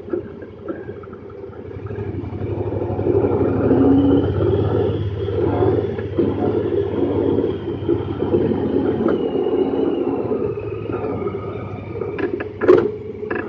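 Honda Pioneer 1000-5 side-by-side's parallel-twin engine and drivetrain running on a dirt trail, heard from inside the open cab, with a high whine that rises about three seconds in, holds, and sinks back near eleven seconds. A few sharp knocks near the end.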